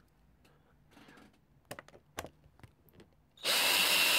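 A few light clicks and taps, then about three and a half seconds in a cordless drill-driver starts and runs steadily, undoing a screw on the motorcycle's air filter cover.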